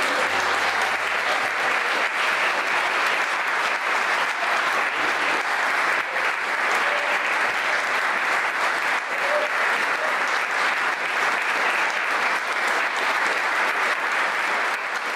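Audience applauding steadily with dense, continuous clapping at the end of a performance.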